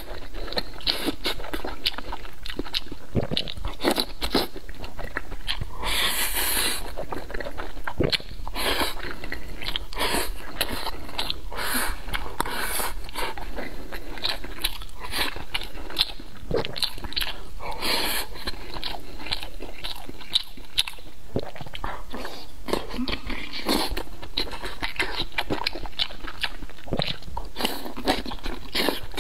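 Close-up eating sounds: biting into and chewing soft charred green peppers in sauce and mouthfuls of black rice, a dense run of wet smacks and crunches. There are a couple of longer, louder bursts about six and eighteen seconds in.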